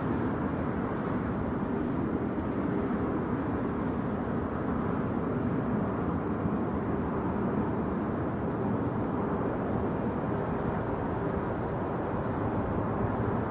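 Steady jet airliner engine noise, an even rushing sound that neither rises nor falls, with a faint constant hum underneath.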